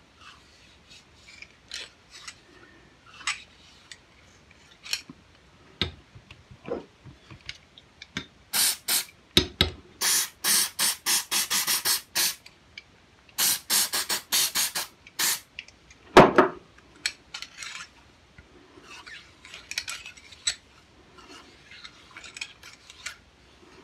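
Hand cleaning of a derringer's heavily leaded barrels: scattered light clicks and handling noises, then a run of short hissing strokes, a few per second, for several seconds. A couple of knocks and one loud thud follow.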